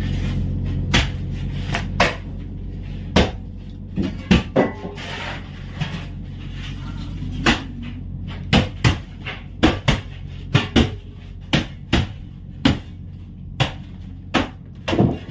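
Irregular sharp wooden knocks and clatter among the boards of a fishing boat's fish hold, coming thick and fast in the second half. A low steady hum underlies the first few seconds and then fades.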